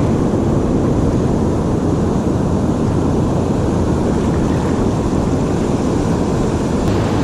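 Steady, low rumble of ocean surf with wind buffeting the microphone.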